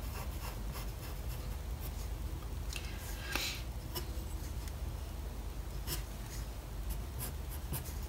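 Pencil scratching on drawing paper in short, irregular strokes, with a few louder strokes about three and a half seconds in.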